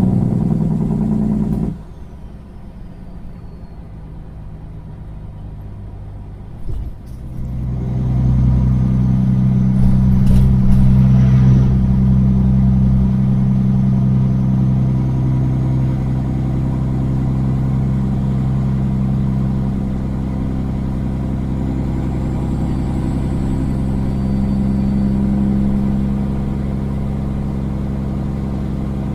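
Kenworth semi-truck's diesel engine heard through straight exhaust pipes: a loud steady drone cuts off suddenly a couple of seconds in, the truck coasts quietly for about five seconds, then the engine pulls again and runs steadily.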